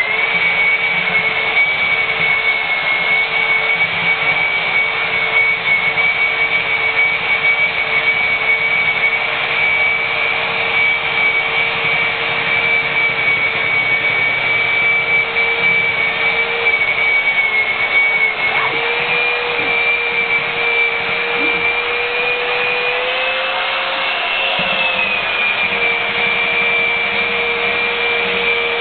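Parkside electric belt sander running steadily with a high motor whine while sanding the face of a round wooden log slice. Its pitch rises slightly twice, about two-thirds of the way in and again a little later.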